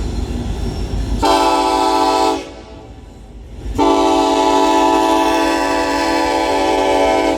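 Union Pacific freight locomotive's air horn blowing a chord: a short blast about a second in, then a long blast after a brief pause, over the low rumble of the train.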